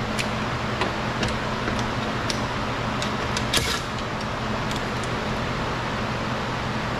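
A steady mechanical hum with a handful of light, irregularly spaced clicks from hand-tool work on the car door's bolts.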